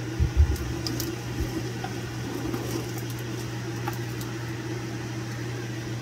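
A steady low machine hum, like a fan or appliance running, with a few soft bumps in the first second and a half.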